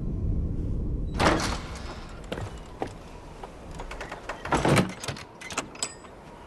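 Hut doors being opened and shut: a loud scraping bang about a second in and another near five seconds, with smaller knocks and clicks between them.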